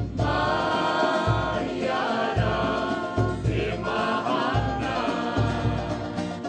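Music: a group of voices singing held, harmonised notes over a low pulse that comes about once a second.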